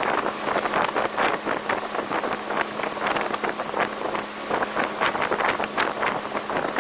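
1985 Sea Sprite Continental Mark II motorboat running at speed, with a steady engine hum under heavy, gusty wind buffeting on the microphone and water rushing along the hull.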